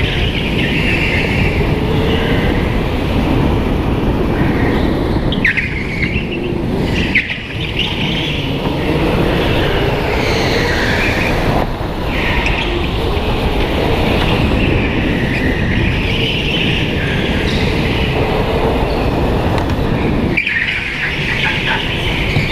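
Go-kart running at racing speed around an indoor track, its motor note rising and falling through the corners, with short tyre squeals, two of them about five and seven seconds in.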